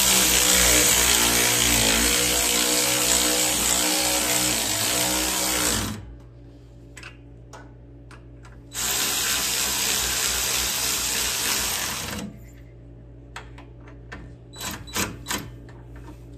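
Cordless power tool motor running in two spells, one of about six seconds and a shorter one of about three seconds, driving in the metric mounting bolts of a Briggs & Stratton engine's carburetor. Between and after the spells come light clicks and taps from handling the tool and parts.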